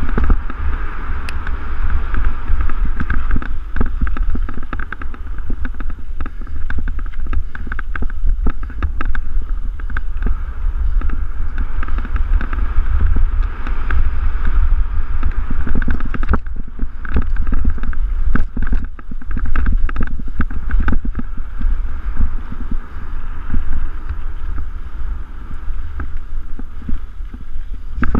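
Mountain bike riding fast down a dirt singletrack, heard from an action camera on the bike: a steady low wind rumble on the microphone, tyre noise on the dirt, and frequent clicks and rattles as the bike goes over bumps, busiest about two thirds of the way in.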